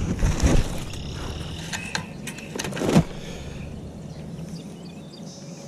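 Jacket fabric rubbing and rustling right against the camera microphone, with several sharp handling clicks; the loudest comes about three seconds in. After that, only a quieter steady hiss.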